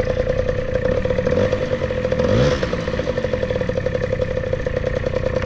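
Honda Dio scooter's two-stroke engine idling with an empty aluminium drinks can wired in front of its exhaust outlet, so the exhaust pulses hit the can in a rapid, even chuffing rhythm. The pitch rises briefly about halfway through.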